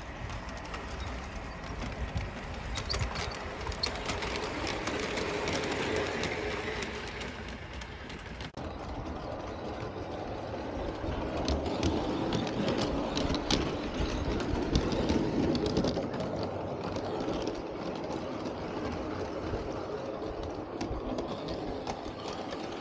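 Bachmann G-scale model locomotives with a train of wagons running on garden railway track, the wheels rumbling and clicking over the rail joints. It grows louder as the train comes close past the middle of the run.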